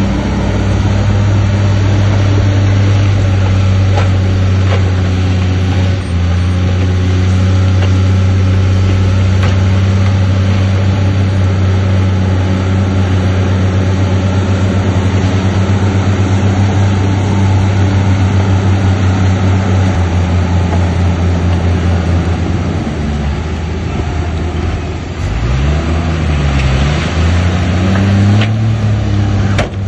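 Diesel engine of a heavy earthmoving machine running steadily. About three-quarters of the way through, its pitch dips and then climbs back up before it settles again.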